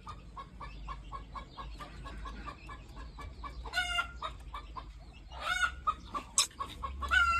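Chickens clucking in a steady run of short soft clucks, broken by three longer, higher squawking calls about four, five and a half and seven seconds in.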